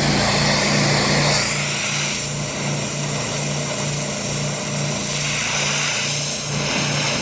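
A 4,000 PSI Mighty M pressure washer running: an engine drone that pulses at a little over two beats a second, under the loud hiss of the high-pressure water jet on concrete. The hiss swells and eases a few times as the spray moves.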